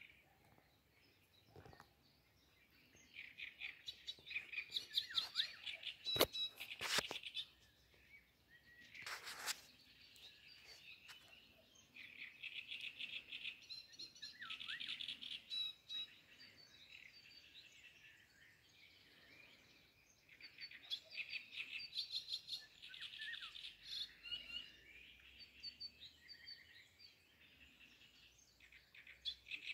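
Birds chirping in quick, twittering phrases that come and go. A few sharp knocks stand out between about six and nine seconds in.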